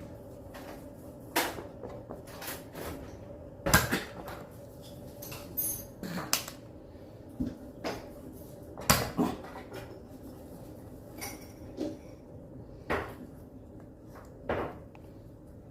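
About a dozen sharp clicks and knocks at irregular intervals, a few louder thuds among them, over a faint steady hum.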